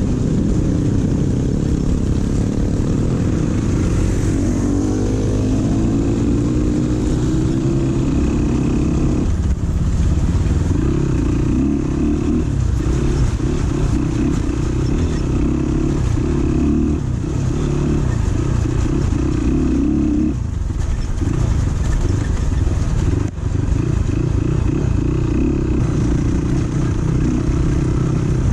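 Single-cylinder 250–300 cc dirt bike engine running under way off-road, its revs rising and falling. The engine note drops away briefly several times, as the throttle is eased or gears are changed.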